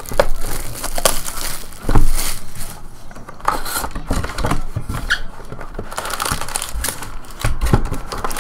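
Plastic shrink wrap crinkling and tearing off a cardboard trading-card hobby box, then the lid lifted and foil card packs handled and pulled out, with irregular rustles and sharp clicks throughout.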